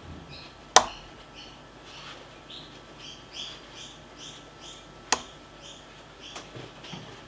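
Lock picking: two sharp metallic clicks from the pick and tension tool working a pin-tumbler challenge lock, one about a second in and one about five seconds in. Under them runs a string of short, high chirps, about three a second.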